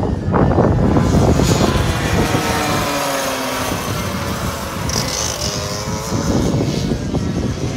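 Two-stroke racing kart engines running on the circuit, a whine of several overlapping notes falling in pitch as karts slow and pass, about two to four seconds in, over a dense low rumble.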